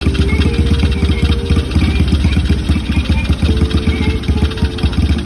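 Small single-cylinder engine of a Chinese Honda Monkey clone, fitted with a PZ20 carburettor, idling steadily with fast, even firing pulses.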